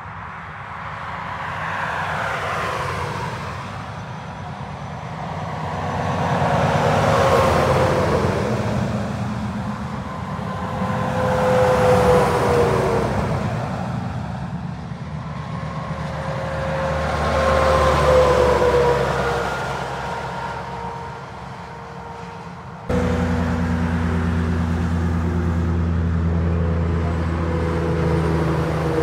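Heavy semi-trailer trucks passing one after another on a motorway, about four in turn. Each swells and fades, its engine and tyre tone dropping in pitch as it goes by. About 23 seconds in the sound cuts abruptly to a steady, louder truck engine drone with a low hum.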